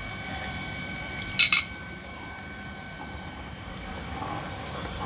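Two quick, sharp clinks of a metal ladle against a cooking pot, about a second and a half in, over a steady faint background hum.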